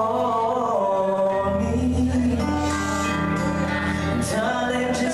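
Live band music: a singer's melody over electric guitar and steady low notes, loud and continuous.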